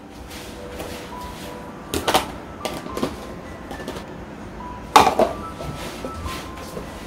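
Kitchenware knocking and clattering as cookware is handled: a few short knocks, with sharp ones about two seconds and five seconds in, the second the loudest.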